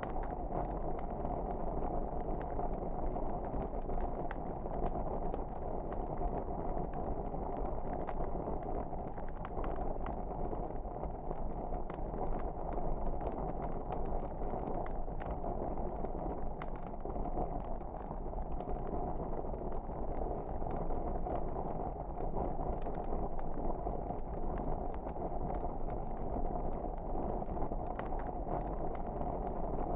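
Wood fire in a fireplace crackling: a steady low rush of flames with many small sharp pops and snaps scattered throughout.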